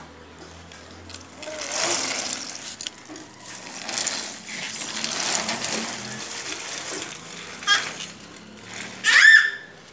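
A plastic baby walker's wheels rattling as it rolls over a concrete floor, with a click a little before the end, then a baby's short high squeal near the end.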